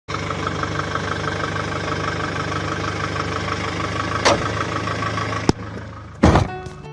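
Kia Sorento 2.5 CRDi turbo-diesel and driveline running, with a fast, even ticking. Three sharp knocks come in the last three seconds, the last the heaviest. This is the knocking the vehicle is being diagnosed for.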